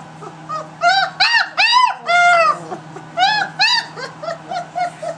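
Three-week-old German Shepherd puppy whining and crying: a string of about a dozen high cries that rise and fall in pitch. They come in quick succession, getting shorter and fainter toward the end.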